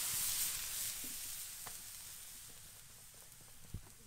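Water squirted onto a hot wood-fired saj, the domed iron griddle, sizzling and hissing, loudest at first and dying away over about three seconds. A single small knock near the end.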